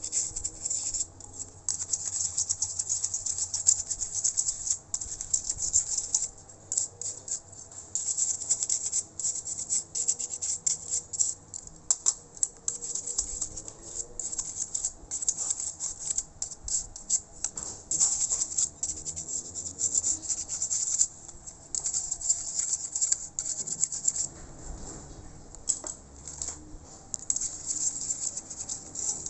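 An old toothbrush scrubbing dust from a laptop's cooling fan: quick, irregular strokes of the bristles, giving a dry, scratchy hiss.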